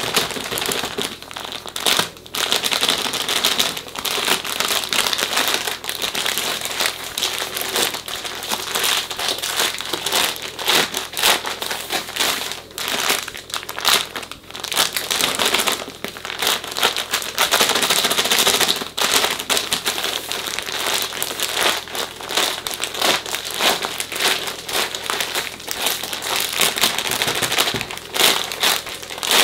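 Plastic mushroom grow bag crinkling and rustling as gloved hands knead and turn it, with the grain spawn and pellet substrate inside shifting and rattling. This is the bag being mixed so the spawn spreads evenly through the substrate.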